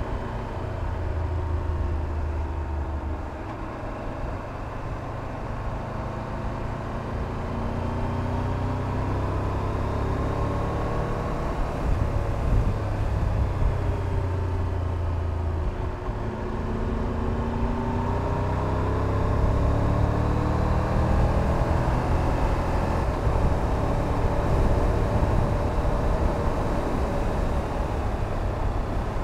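Triumph Tiger 1200 Rally Pro's three-cylinder engine running on the move, its pitch rising and falling several times as the rider works the throttle and gears. Heavy wind rumble on the microphone sits under the engine.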